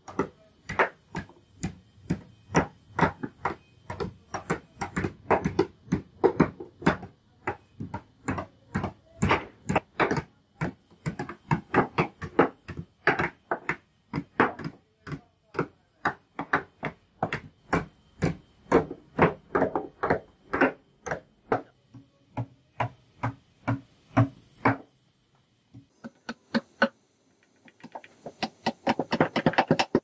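Several claw hammers driving nails into wooden planks: sharp, irregular blows, a few each second and often overlapping from more than one hammer. The blows thin out to a few scattered strikes near the end, then come fast again.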